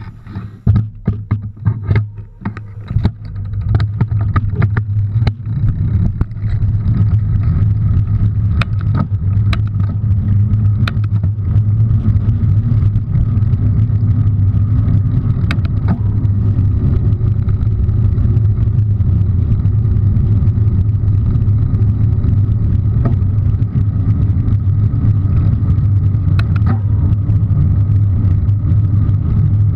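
Bicycle ride heard from a handlebar-mounted camera: irregular knocks and rattles for the first six seconds, then a steady low rumble of wind and tyres on pavement, with a knock from a bump now and then.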